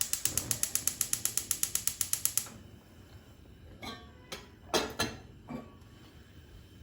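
Rapid, even mechanical clicking, about eight clicks a second, like a ratchet or winding mechanism, stopping after about two and a half seconds; a few separate knocks follow.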